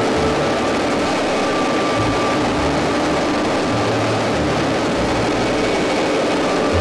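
PZL Kania twin-turbine helicopter heard from its open door in flight: a loud, steady rush of rotor and engine noise with a faint high turbine whine, and uneven low rumbling of wind on the microphone.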